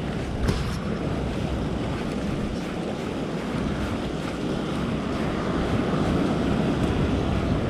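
Ocean swell surging and washing over a rock platform, with wind buffeting the microphone.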